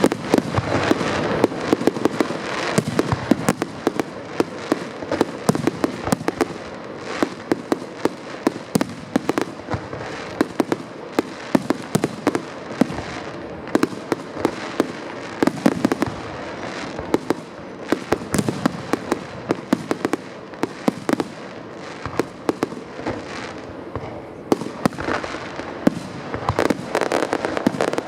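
Fireworks finale: a dense, continuous barrage of shell bursts and bangs over a constant crackle, several explosions a second throughout.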